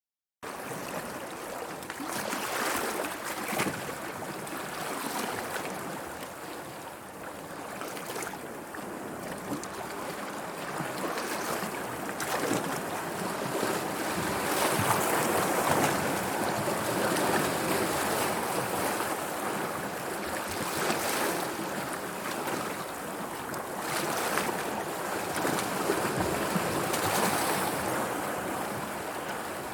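Sea waves in a steady rush of surf that swells and eases over several seconds, with a few brief louder splashes.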